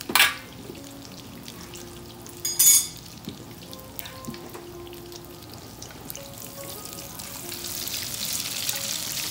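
Egg-battered chicken cutlets frying in hot canola oil in a skillet: a steady sizzle that grows louder over the last couple of seconds. Two sharp clanks, one right at the start and one about two and a half seconds in.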